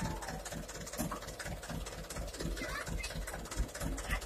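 Diesel engine of a Canter dump truck idling steadily, with an even low chugging.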